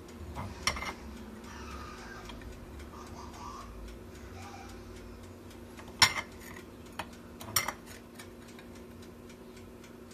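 Metal table knife clinking and scraping against a roasted marrow bone and a ceramic plate as the marrow is scooped out. There are a few sharp clinks, one about half a second in, the loudest about six seconds in, and two more around seven seconds, over faint steady ticking and a low hum.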